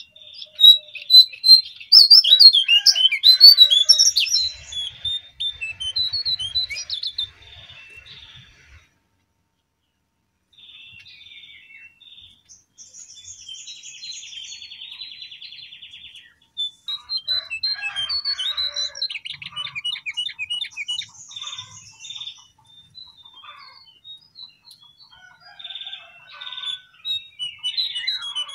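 Cingcoang coklat (jongkangan, lesser shortwing) song played as a bird-training recording: fast, high twittering phrases and trills, loudest in the first few seconds. The song pauses briefly about nine seconds in, and a long buzzy trill runs from about twelve to sixteen seconds.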